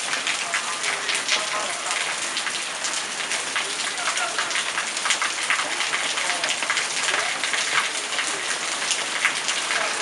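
Heavy typhoon rain falling steadily on a wet yard and its puddles, with many separate drop hits heard through the constant rush.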